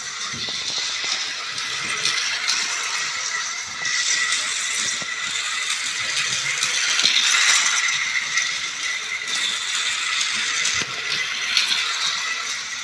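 Battery-powered toy train running on plastic track: a steady rattling whir from its small motor and wheels, with a faint high hum running through it. It grows loudest about seven seconds in.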